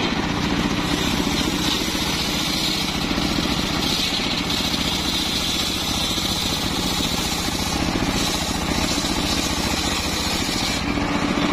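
Homemade circular saw bench ripping a mahogany log, its blade cutting steadily through the wood over the running drive motor. The high cutting noise drops away near the end.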